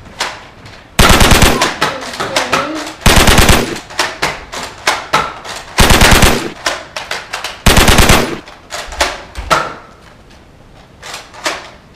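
Four short bursts of rapid automatic machine-gun fire, each under a second long, a gunfire sound effect standing in for Nerf blasters being fired. Smaller clicks and knocks come between the bursts, and it goes quiet near the end.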